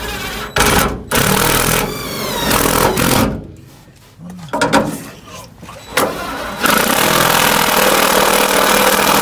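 Cordless drill driving self-tapping screws into the sheet-metal cab wall in several bursts, loud. The motor whines up in pitch during one early run, stops and starts again, and runs longest near the end.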